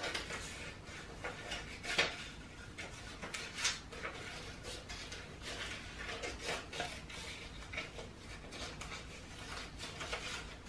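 Scissors snipping through a sheet of paper in an irregular run of short cuts, with the paper rustling as it is turned to follow a curvy outline. A couple of snips, about two seconds in and again a little later, stand out louder than the rest.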